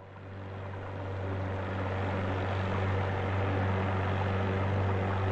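Motorboat engine running steadily: a low engine drone with hiss over it, fading in over the first couple of seconds and then holding level.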